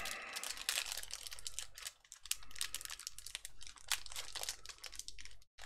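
Plastic wrapper of a trading-card pack crinkling under the fingers as it is worked open by hand, in many quick, irregular crackles.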